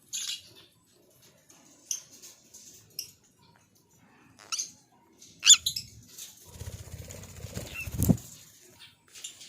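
Pet lovebirds moving about: a few short, sharp high chirps or rustles, then about a second and a half of wings flapping close by that ends in a thump near the end.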